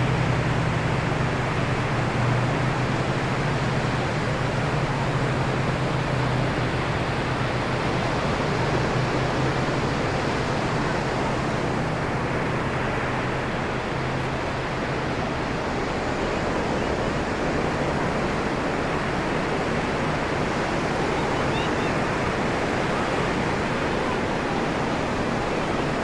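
Ocean surf breaking and washing up the beach: a steady, dense wash of noise that eases slightly about halfway through.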